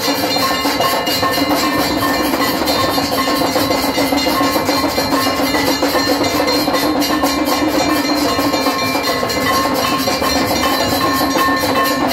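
Temple bells and percussion clanging rapidly and without pause, with steady ringing tones over the strikes: the accompaniment of an aarti.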